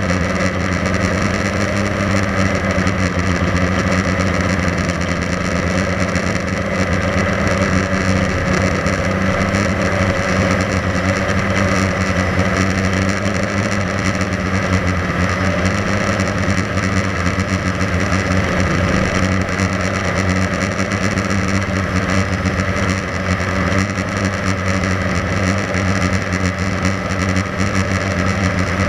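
Blade 350 QX3 quadcopter's four electric motors and propellers running steadily in flight, a loud, even buzzing hum, heard close up from the camera carried on the drone.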